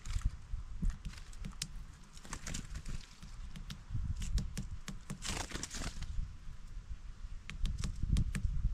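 A tit pecking at food on a wooden feeder tray: a run of irregular sharp taps, over a low, uneven rumble.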